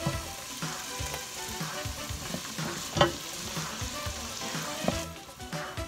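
Black beans with onion and red pepper sizzling in a stainless steel pot while a wooden spoon stirs them, knocking and scraping against the pot, with one sharp knock about three seconds in. The sizzle thins about five seconds in.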